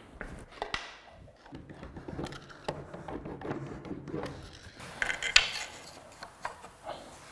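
Cut plywood pieces of a jigsaw-cut woodblock being slid and fitted back into place by hand: small wooden knocks, clicks and scrapes, with one sharper knock about five seconds in.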